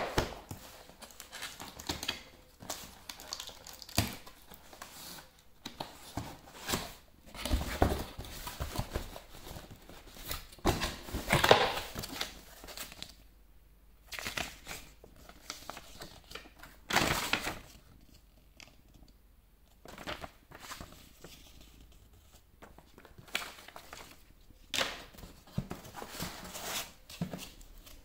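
Cardboard packaging being handled: a box opened, flaps and cardboard sliding and scraping, and a paper leaflet and packing material rustling and crinkling in irregular bursts, with a few short knocks.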